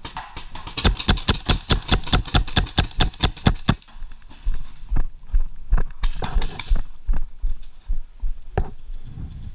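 Paintball marker firing: a rapid, even string of shots at about eight a second for roughly three and a half seconds, then scattered single shots.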